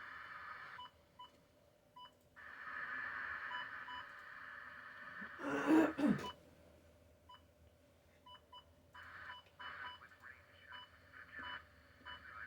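Weather radio receiver being switched between channels: hiss of radio static cutting in and out, with short electronic beeps as its buttons are pressed. A brief loud burst comes about six seconds in.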